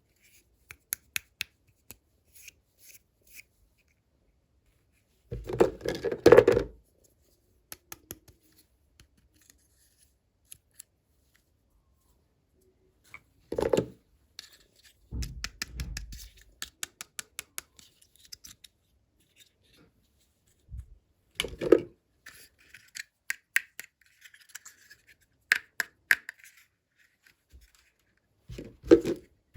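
Unboxing sounds: scissors snipping and packaging being cut and handled. They come in separate bursts of crisp clicks and rustling, with short quiet pauses between them.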